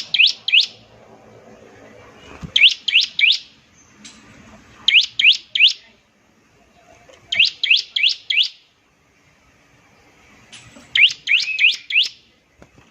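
Bar-winged prinia (ciblek) singing in repeated bursts of three to five sharp, high chips. Each burst lasts under a second, with five bursts spaced a couple of seconds apart.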